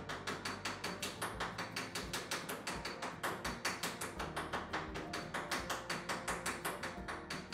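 Light, rapid, even hammer taps, about five a second, peening over a rivet in the plank lap of a wooden lapstrake canoe to finish it.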